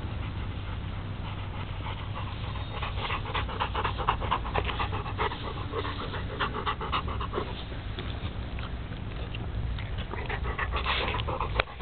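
Dog panting in quick short breaths as it forages among raspberry canes, with a low steady rumble underneath.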